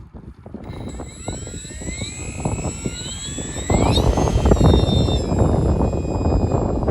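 Electric brushless motor of a Durafly P-40 Warhawk foam RC warbird on a 4S battery, whining up steeply in pitch as the throttle is opened for takeoff, then holding a steady high whine. About four seconds in, a loud rumble of wind buffeting the microphone joins it.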